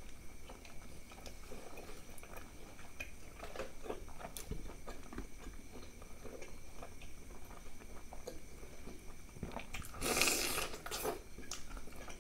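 Close-miked chewing and wet mouth sounds of a person eating by hand, with small clicks and crackles throughout and one louder, longer noisy sound about ten seconds in.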